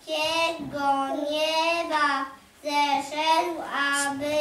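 Young children singing a song together, held notes stepping through a melody, with a short breath break about halfway.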